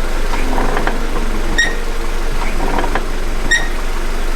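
Rear drum brake squeaking: two short, sharp high-pitched chirps about two seconds apart over a steady running hum from the car. The linings were recently replaced and it still squeals, which the mechanic puts down to basic prep being skipped at the lining change.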